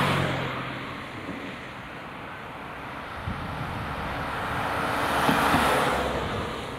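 Road traffic passing close by: one vehicle swishes past at the start and a louder one about five and a half seconds in, tyre and engine noise swelling and fading over a steady traffic hum.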